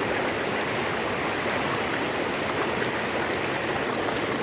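River water flowing, a steady rush.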